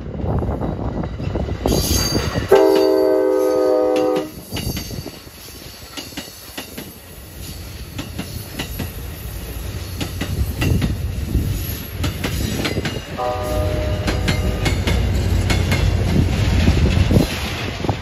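Amtrak California San Joaquin passenger train passing with a steady rumble and wheels clicking over the rails. A loud multi-note air horn chord sounds for about a second and a half, two and a half seconds in, and a second, fainter horn blast comes about thirteen seconds in.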